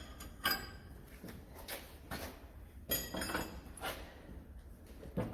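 Intermittent metal knocks, clinks and scrapes from handling a hydraulic ram and its fittings, with a longer rattling scrape about three seconds in and a sharp knock near the end.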